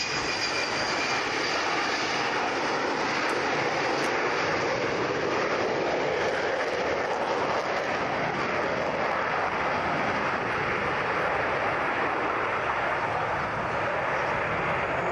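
Hawker Siddeley Nimrod's four Rolls-Royce Spey turbofans at high power on a low pass and climb-away: a loud, steady jet roar, with a faint high whine fading out in the first second.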